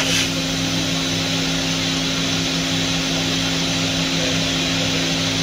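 Roku-Roku Sanyo HC-658 high-speed vertical machining centre running under power: a steady machine hum with a few constant low tones and an even hiss, with a brief rush of noise right at the start.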